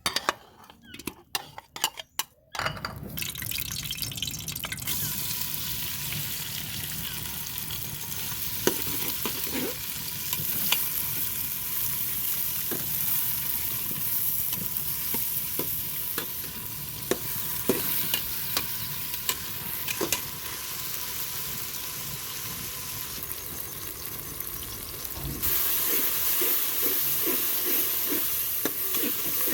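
Food sizzling in hot oil in a cooking pan, stirred with a utensil that clicks against the pan now and then. A few separate knocks come first; the sizzle starts about two and a half seconds in and gets louder near the end.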